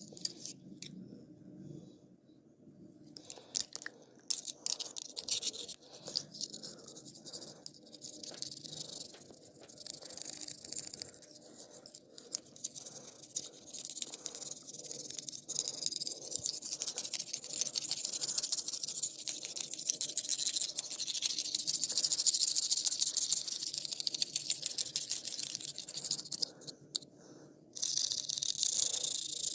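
Close-up scratching and rubbing of a barber's massage over hair and skin: a dense, hissy brushing sound with scattered sharp clicks in the first half and a short pause near the end.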